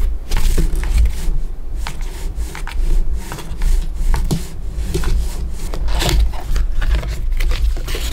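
Food-preparation handling sounds: irregular rubbing, scraping and light taps, over a steady low rumble.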